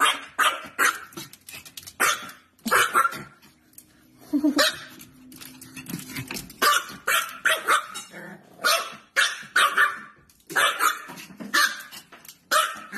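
Small dog barking repeatedly in quick runs of short, sharp barks, with brief pauses between the runs.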